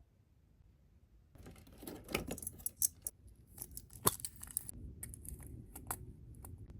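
Packaging being handled and opened: irregular crinkling, rustling and sharp clicks that start about a second and a half in, busiest in the middle, then sparser.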